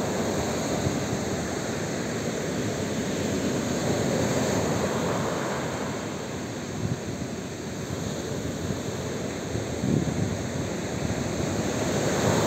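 Sea surf breaking and washing up a beach, a continuous wash of waves that swells a little about four seconds in and eases briefly after, with wind rumbling on the microphone.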